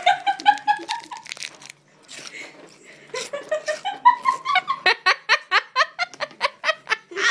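Girls laughing and giggling, with a short lull about two seconds in, then a long run of quick, rhythmic laughs.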